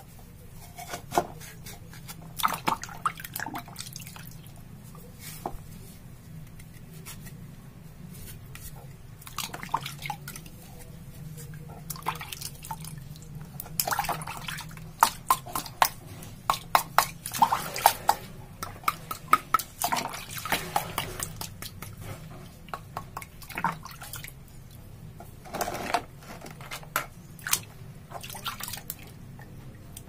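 Water dripping and splashing, with irregular small clicks and taps, as the parts of a plastic faucet are cleaned of mineral grit; the clicks come thickest about halfway through.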